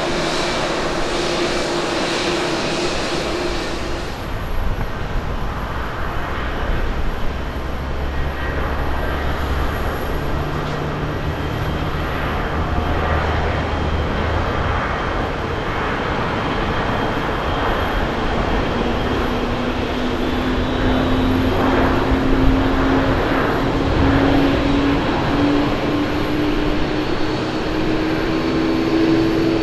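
Boeing 737 jet engines. For the first few seconds a landed 737 rolls out with a broad jet roar. After an abrupt change about four seconds in, a second 737 accelerates on its takeoff roll at takeoff thrust, its engine whine rising in pitch and growing louder toward the end.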